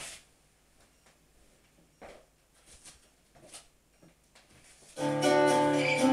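A few soft knocks and bumps, then about five seconds in a loud backing track starts through the PA speakers: strummed guitar over bass with a steady beat.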